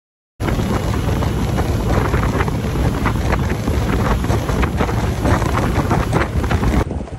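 Wind buffeting the microphone over the noise of a small open boat running fast across the water, throwing spray. It starts abruptly and drops to a much quieter level near the end.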